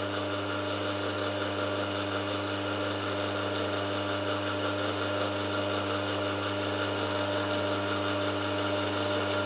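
Milling machine running with its spindle turning, a steady motor hum and gear whine.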